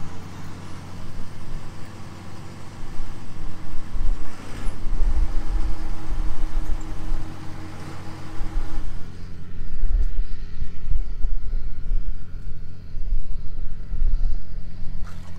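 A motor running with a steady low hum, under an uneven low rumble that swells and fades. Some higher noise drops away about nine seconds in.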